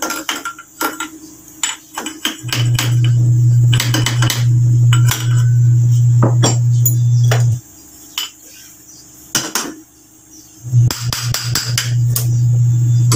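Metal clinks and knocks of hand tools and steel starter-motor parts as a large truck starter is taken apart and its end housing lifted off. A loud steady low hum stops for about three seconds in the middle, then starts again.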